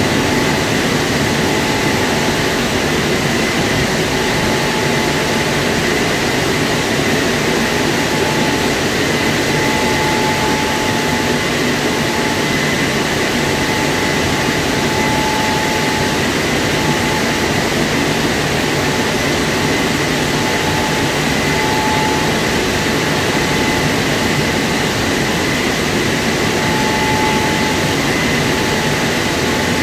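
WashTec SoftCare2 Pro rollover car wash gantry running its drying blowers over a car: a loud, steady rush of air with a faint high whine, unchanging throughout.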